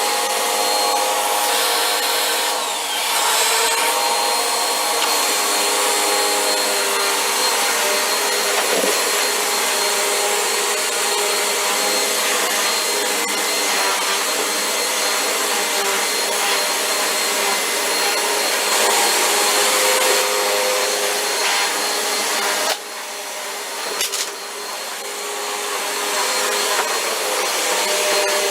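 Vacuum cleaner running steadily while vacuuming a floor, a whirring motor with a steady whine. A few seconds before the end its sound drops noticeably in level with a brief click, then slowly climbs back.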